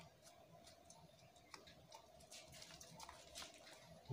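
Near silence with faint, irregular light clicks and ticks from small plastic spice packets being handled over a steel pot, over a low steady hum.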